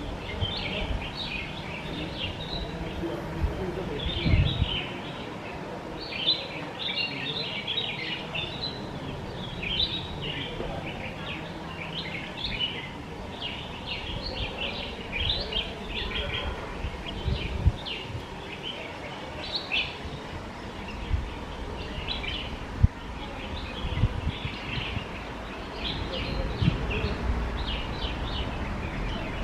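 Red-whiskered bulbul calling: a rapid, continuing run of short high chirps. Underneath are a low rumble and a few brief low thumps.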